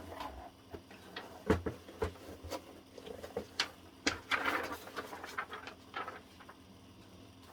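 Sheets of paper being handled and unfolded: scattered light taps and clicks, with a longer stretch of rustling a little past the middle.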